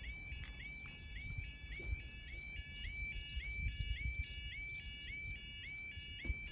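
Level crossing yodel alarm sounding as the barriers lower: a repeating electronic tone that swoops up and holds, about twice a second.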